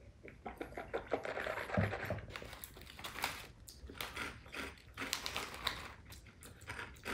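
Small plastic snack packet crinkling and crackling as it is torn open and handled, in quick irregular clicks and rustles.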